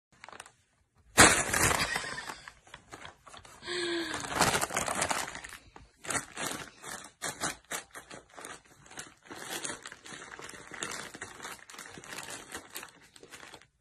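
Brown paper bag crinkling and rustling in many irregular short crackles as a cat walks about with its head inside it, with a brief pitched cry about four seconds in.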